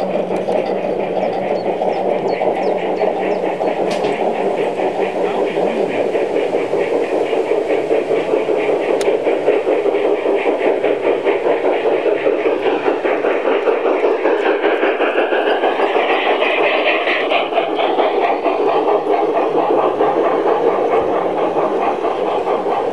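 LGB garden-scale model trains running close past on the track: a steady rumble of many metal wheels rolling over the rails, with rapid fine clicking.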